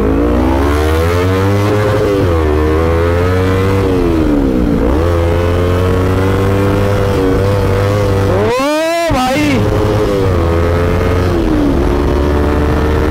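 Sport motorcycle engine running under way, its pitch climbing and dropping several times as the throttle is opened and eased off. About eight and a half seconds in there is a brief sharp rise and fall in pitch.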